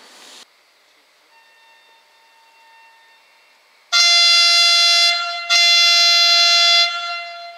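Diesel locomotive horn sounding two long, loud blasts of the same pitch, one straight after the other, with a much fainter horn tone a little earlier.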